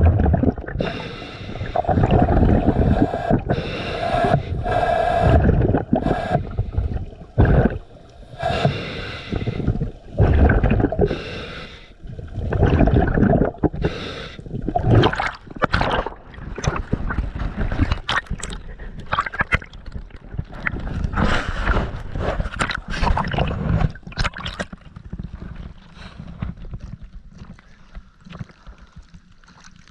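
Scuba diver breathing through a regulator underwater: rushes of exhaled bubbles in uneven bursts, with a humming tone on the inhalations in the first few seconds, turning quieter and crackly near the end.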